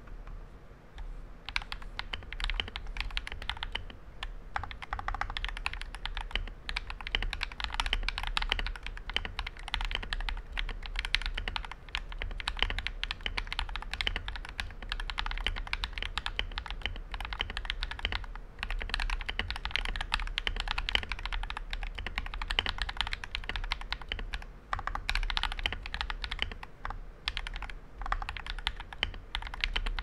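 Typing on a TM680 mechanical keyboard fitted with lubed Akko Vintage White linear switches, lubed stabilizers and Poron switch pads: a fast stream of muted key clacks in runs, with short pauses between them.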